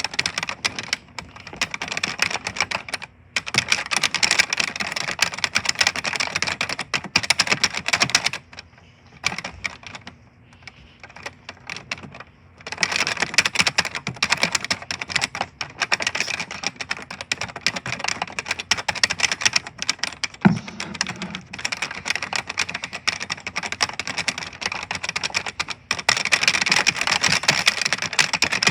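Computer keyboard being typed on fast and loudly, a dense run of key clicks. It comes in long bursts, thinning to sparse, quieter keystrokes for a few seconds about a third of the way in.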